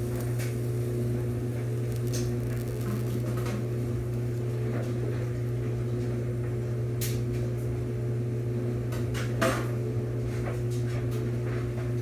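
A few scattered clinks and knocks of a pan and cooking utensils being handled, over a steady low hum; the sharpest knock comes about nine and a half seconds in.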